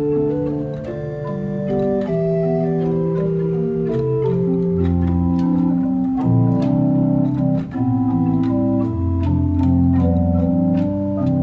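Rieger pipe organ playing a multi-voiced passage on its 8-foot stopped diapason, with held chords over a moving bass line.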